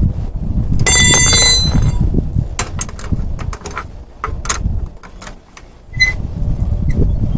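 Metal parts clinking: a ringing metallic strike about a second in and a shorter one near six seconds, among scattered sharp clicks over a low rumble.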